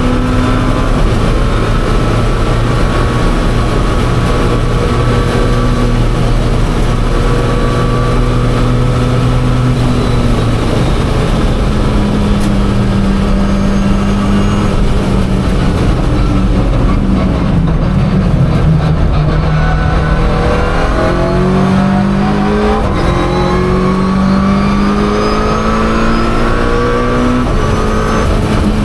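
Mitsubishi Lancer Evolution IX's turbocharged 4G63 four-cylinder engine running hard on track, holding a steady high pitch for about ten seconds. The pitch then falls away, as for braking and downshifting, and climbs again in a run of rising sweeps, each cut short by a drop as it shifts up a gear.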